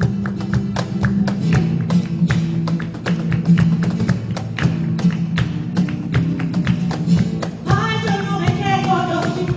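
Latin-style music: a passage of rapid percussive strikes over a held low note, with singing coming in about eight seconds in.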